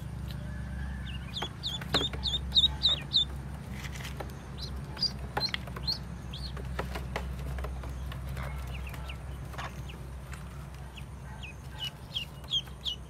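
Newly hatched ducklings peeping: quick runs of short, high chirps about two seconds in and again near the end, with scattered peeps between. A steady low hum runs underneath.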